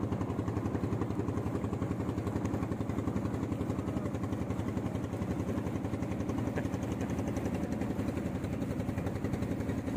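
Boat engine running steadily with a fast, even pulse.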